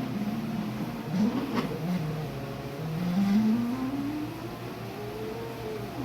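Stepper motors of a CNC drawing machine whining as they move, the pitch rising and falling as the axes speed up and slow down, with a couple of short clicks about a second and a half in.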